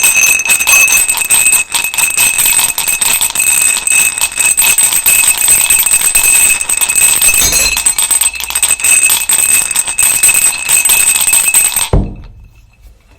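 Loud, continuous metallic jingling rattle made of rapid clicks with steady high ringing tones running through it, stopping abruptly near the end.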